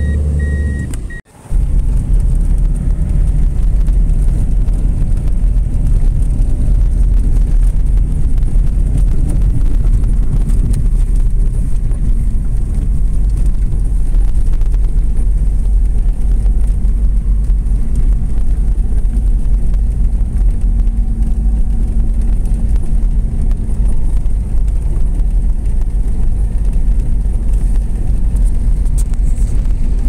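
Steady low rumble of a vehicle driving on a snow-covered road, heard from inside the cab: engine and tyre noise. It drops out briefly about a second in, then runs on unchanged.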